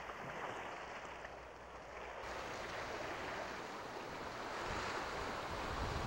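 Sea waves washing, with wind: a steady rush of noise that swells slightly near the end.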